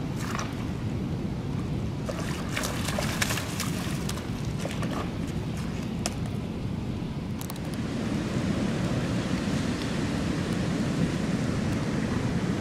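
Steady rush of river water over a rocky shore, mixed with wind on the microphone. Scattered clicks and light knocks come through in the first seven seconds or so.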